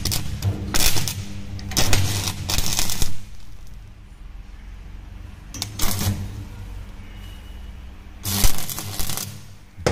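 Stick (manual metal arc) welding: the electrode strikes an arc and crackles in bursts as tack welds are laid on an overlapped steel lap joint. The longest burst runs through the first three seconds, with shorter ones about six and eight and a half seconds in, over a low hum.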